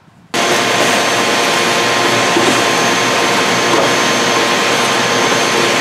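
Shop vacuum running steadily, its hose sucking sawdust off a wooden shelf. The noise comes in abruptly just after the start and holds level.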